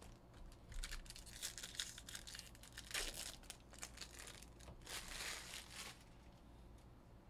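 Foil trading-card pack wrappers being torn open and crumpled, a run of crinkling and tearing that dies down about six seconds in.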